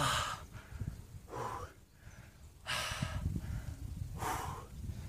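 A man's heavy breathing from the effort of climbing a steep slope under a large backpack: four loud breaths about a second and a half apart, with low irregular thuds of steps and pack movement underneath.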